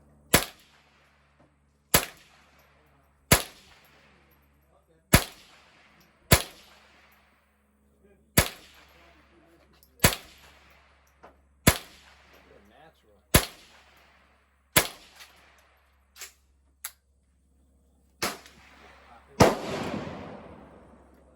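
Gunshots fired one at a time, about a dozen at uneven gaps of roughly one to two seconds, each with a short echoing tail; a few are fainter, and the loudest comes near the end.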